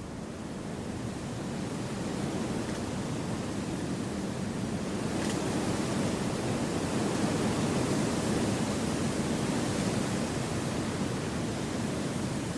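Wind rushing through forest trees, a steady wash of noise that slowly swells over the first few seconds and then holds.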